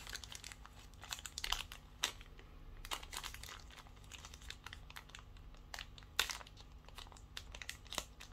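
Packaging of a Xiaomi Smart Band 7 box rustling and crinkling in the hands, with scattered light clicks and taps.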